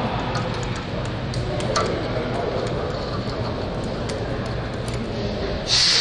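Faint metallic clicks of pliers twisting 0.032 safety wire around an aircraft turnbuckle, over a steady background hum. A louder steady hiss comes in suddenly near the end.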